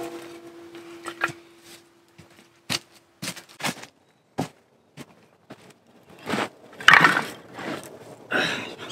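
Dry split firewood and kindling sticks knocking and clattering as they are handled and laid down, in scattered short knocks with a louder cluster of clatters about seven seconds in. A single ringing note fades out over the first three seconds.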